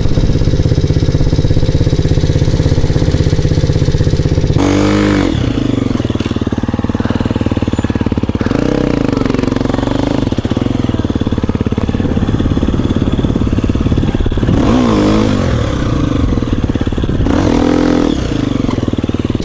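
Husqvarna dirt bike engine revving up and falling back about four times as the bike rides through sand, heard from on board. Before that, for the first few seconds, there is a steady low engine rumble.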